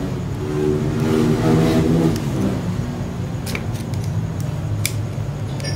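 A motor vehicle engine running nearby, swelling in the first couple of seconds and then settling into a steady low hum. A few light metal clicks come from a screwdriver working on the starter motor's brush holder.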